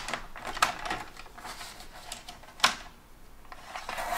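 Sliding paper trimmer cutting a strip of cardstock: the blade carriage scrapes along the rail with light clicks, and one sharp click comes a little past halfway.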